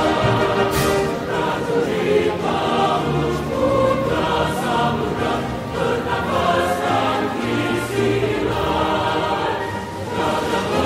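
Choral music: a choir singing over instrumental backing, continuing without a break.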